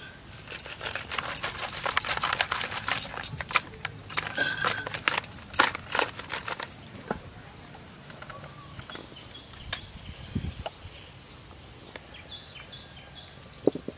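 Salted, turmeric-dusted fish being shaken and tossed in a woven bamboo basket: several seconds of rustling and rattling that stops about seven seconds in.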